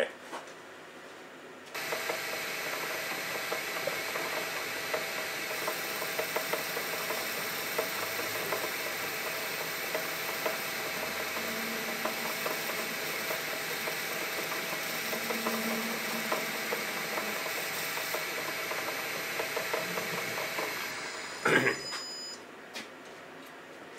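Metal lathe running and turning down a small valve guide held in a four-jaw chuck, cutting its diameter down to size. The machine starts about two seconds in, runs steadily, and stops about three seconds before the end, followed by a few sharp knocks.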